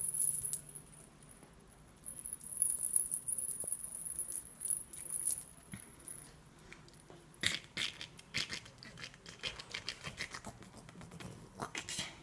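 Bengal kitten at play with a rattling toy: a high jingling rattle from about two to six seconds in, then a run of quick clicks and scrabbling taps.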